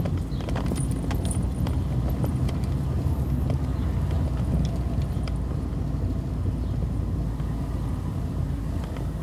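Road vehicle driving along: a steady low engine and road rumble, with scattered light clicks and rattles, more of them in the first couple of seconds.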